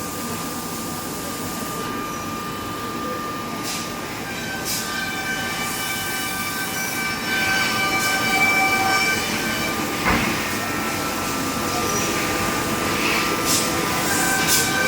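CNC machine running, a steady mechanical din with several high whining tones that shift in pitch, a few light clicks, and one sharp knock about ten seconds in.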